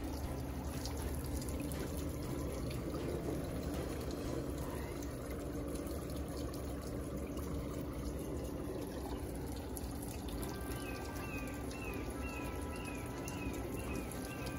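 Steady trickle and lapping of pond water, with light splashing as a hand dips into the water to release small fish. From about two-thirds of the way in, a run of short falling chirps repeats about twice a second over the water sound.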